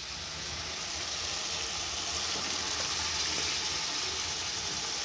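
Cooked, mashed toor dal poured from a pressure cooker pot into a hot pan of frying onion-tomato masala, with a steady sizzle from the pan.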